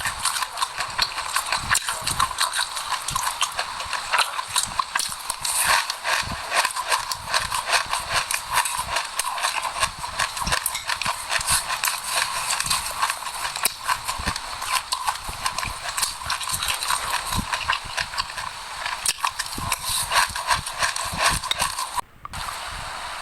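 Close-miked crunchy chewing of a mouthful of sesame seeds and passion fruit seeds: a dense, continuous run of rapid small crackles and clicks, broken briefly near the end.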